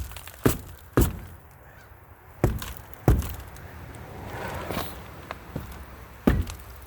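Six heavy blows on a car wheel: three about half a second apart, then two more a couple of seconds later and a last one near the end. This is typical of knocking a wheel that has seized onto its hub to break it free.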